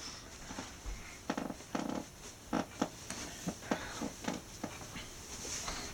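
Faint handling noise: a dozen or so soft, irregular taps and rustles over a low hiss.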